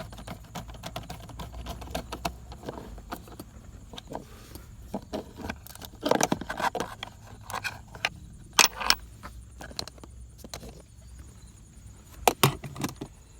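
Scattered light clicks, taps and metallic jingling from hands working around the car's gear shift panel, with louder knocks about six, eight and a half and twelve seconds in.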